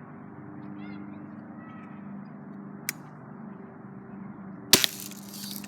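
A BB gun fires once with a sharp, loud crack about three-quarters of a way through, after a single light click about three seconds in. A steady low hum runs underneath.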